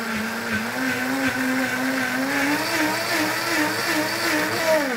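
Countertop blender running under load, puréeing rehydrated dried chiles with their soaking liquid into a smooth sauce; the motor's hum wavers a little in pitch. Near the end it is switched off and its pitch falls as the motor winds down.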